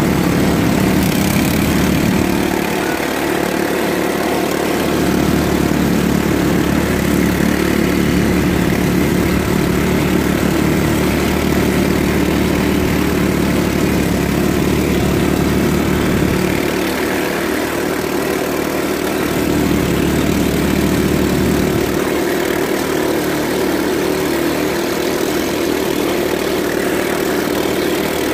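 Quad ATV engine running steadily for the whole stretch, its low note weakening and returning a few times.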